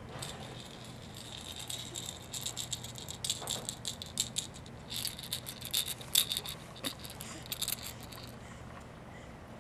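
Rattling: a fast, irregular run of small sharp clicks, loudest in the middle and stopping about eight seconds in.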